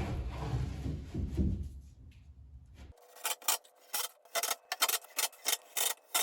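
A hand tool worked back and forth with rasping strokes, about three a second, like filing or sanding. Before it, a low rumble fades out over the first two seconds.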